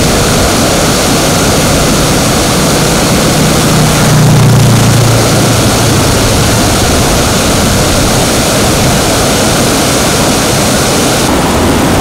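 Loud, steady rush of a muddy stream in flood, pouring fast over rocks and small falls. A low hum swells briefly about four seconds in.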